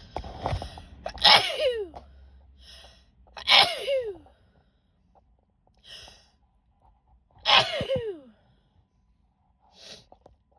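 A woman sneezing three times, a couple of seconds apart, each sneeze ending in a voiced cry that drops in pitch. Quick breaths are drawn in before and between the sneezes.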